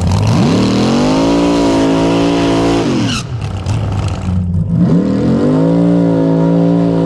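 Rail dragster engine revved up and held at high revs twice, as in a burnout, dropping back to a low idle in between.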